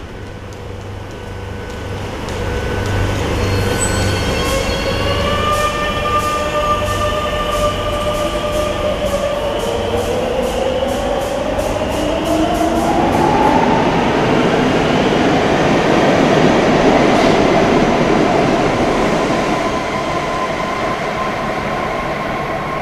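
Madrid Metro train pulling out of the station. Its traction motors whine in pitch steps that climb as it speeds up, while rapid wheel clicks come faster and faster. Then a loud rush of wheels on rail peaks and begins to ease as the train leaves.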